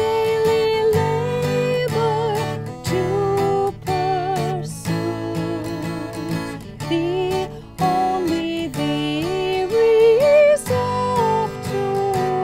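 A woman singing a hymn with vibrato, accompanied by strummed acoustic guitar chords.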